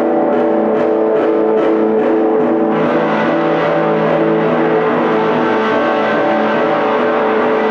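Amplified electric guitar playing sustained, layered tones over a steady run of picked notes. About three seconds in, the sound turns denser and brighter.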